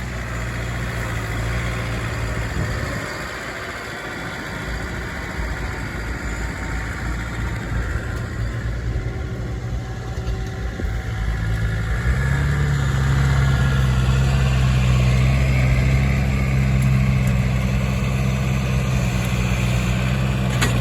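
Tractor engine idling with a steady low note; the note drops away about three seconds in and comes back louder about twelve seconds in.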